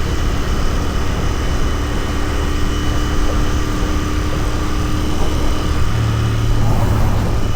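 Royal Enfield Continental GT 650's 648 cc parallel-twin engine running steadily, its low note shifting and getting stronger about six seconds in.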